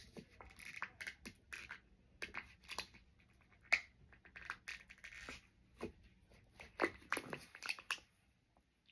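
Thin plastic lid being peeled off a single-serve plastic fruit cup: irregular crinkling and crackling with sharp clicks, strongest about four seconds in and again near seven seconds.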